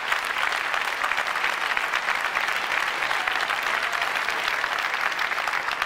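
Large audience applauding steadily, a dense even clapping.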